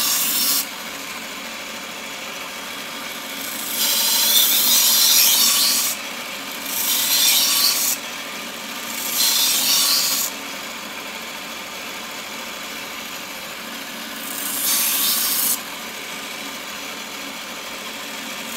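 1x30 belt sander running steadily while a steel knife edge is pressed to the abrasive belt in about five short passes of one to two seconds each, each pass a bright grinding hiss. This is tip work, grinding out a small chip near the knife's tip.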